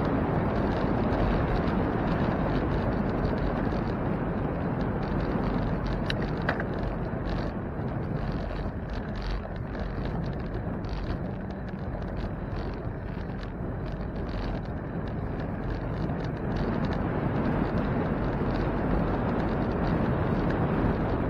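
Wind rushing over the microphone of a camera riding on a moving bicycle, a steady low rumble that eases off somewhat in the middle and picks up again near the end.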